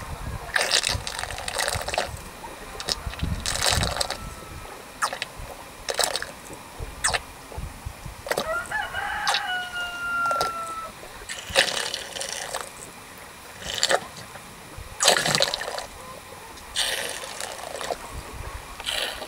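A cow slurping water from a metal trough in gulps every second or two. A rooster crows once in the background near the middle.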